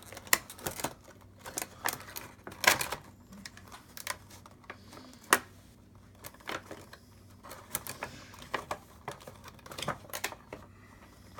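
Plastic packaging insert and cardboard box clicking and crackling irregularly as a vinyl Funko Pop figure is pried out, with three sharper snaps louder than the rest.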